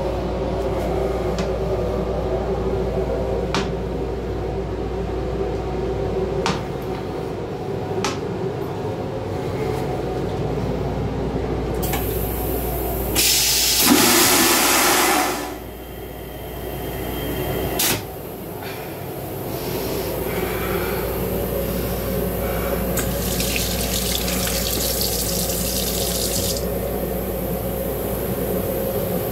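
Metro-North M8 railcar toilet flushing: a loud rush lasting about two seconds, starting some 13 seconds in, over the steady hum of the moving train. Later a sink faucet runs for a few seconds, with a few sharp clicks scattered through.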